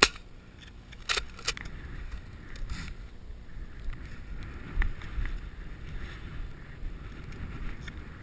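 Low rumble of wind buffeting the microphone. Sharp clicks come at the start and about a second in, and a dull knock about five seconds in.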